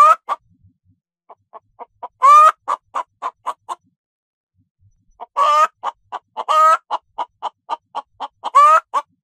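Domestic hen cackling: runs of quick, short clucks, each building into a long, drawn-out call, four times over.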